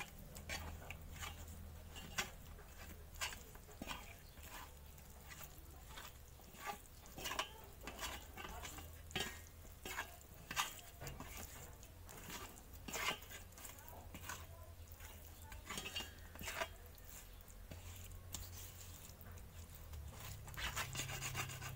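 Rohu fish pieces coated in spices and mustard oil being mixed by hand on a metal plate: faint, irregular taps and scrapes as the fingers and fish pieces knock and slide against the plate.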